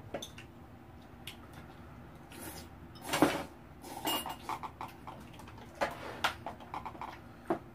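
Scattered clinks and knocks of dishes and cutlery. There is a quick run of taps around four to five seconds in, and the loudest knock comes a little over three seconds in.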